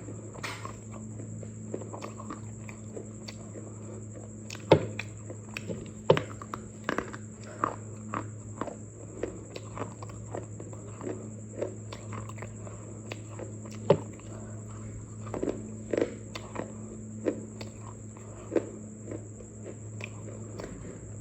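Irregular crunches of dry clay being bitten and chewed, one or two a second, with the sharpest about five, six and fourteen seconds in, over a steady electrical hum.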